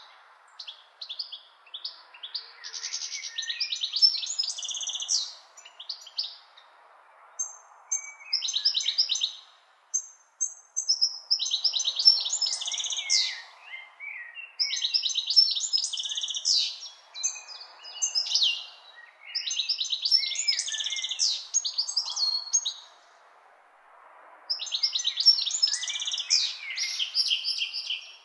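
A songbird singing short, complex phrases of trills and chirps, repeated every few seconds with brief pauses, over a faint steady background hiss.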